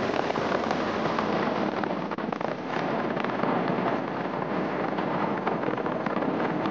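Wind and road noise rushing over the microphone of a moving motorcycle, full of dense crackling ticks.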